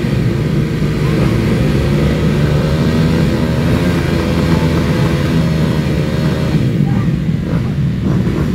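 Motocross dirt bike engines running and revving over a steady loud rumble, their pitch rising and falling.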